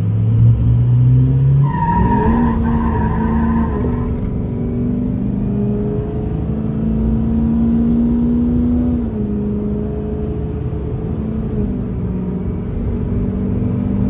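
Ford 6.0 Powerstroke turbo-diesel V8 accelerating hard, heard from inside the cab: the engine note climbs in the first two seconds, with a high whistle rising alongside, jumps up with a brief whine about two seconds in, then holds steady. About nine seconds in it drops to a lower steady cruise with road noise underneath.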